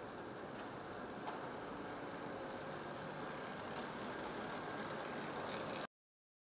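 Porsche 918 Spyder rolling slowly, with a steady hum and hiss. The sound cuts off abruptly about six seconds in.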